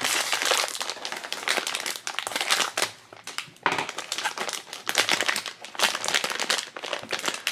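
Foil blind-box bag crinkling as hands squeeze it and open it, with a short lull about three seconds in.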